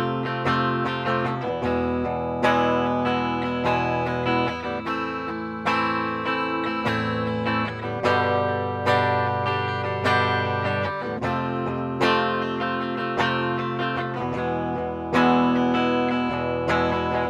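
Burny Les Paul-style electric guitar played on its bridge pickup with a clean, undistorted tone. Chords are strummed and picked, with a new chord struck about every half second to a second.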